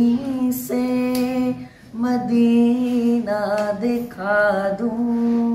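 A boy singing a naat solo and unaccompanied, holding long sustained notes with melismatic ornamented turns in the middle, pausing briefly for breath about two seconds in.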